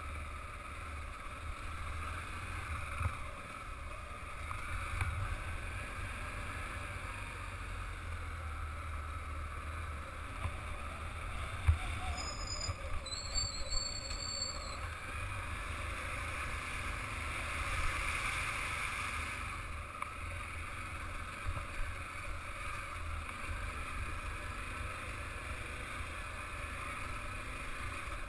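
Motorcycle engine running steadily under way on a rough dirt and gravel road, with wind noise on the microphone and occasional knocks from the bumpy ride. About halfway there is a brief high squeal.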